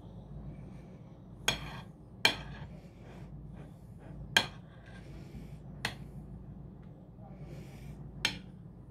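Metal spoon clinking against a ceramic plate and bowl five times while spreading cream frosting on a cake, with soft scraping between the clinks.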